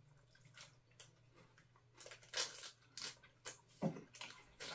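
Kit Kat wrapper crinkling and tearing as it is handled. It is a run of short, sharp crackles starting about two seconds in, after a quiet start with a few faint ticks.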